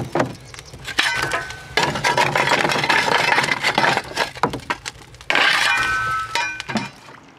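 Coal being shovelled into a steam launch's boiler firebox: a steel shovel scrapes, and coal lumps clatter against the metal firebox mouth in several bouts, with a few short metallic rings.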